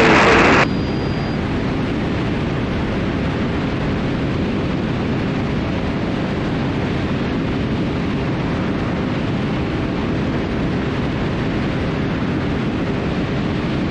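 Cessna T310R's engines and propellers running steadily in the climb after takeoff, a constant drone and rush of air with no change in pitch. About a second in, louder cockpit audio cuts off suddenly, leaving only this steady noise.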